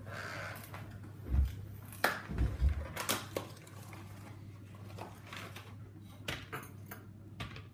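Scattered light knocks and clicks of things being handled, a cluster in the first half then fewer, over a steady low hum.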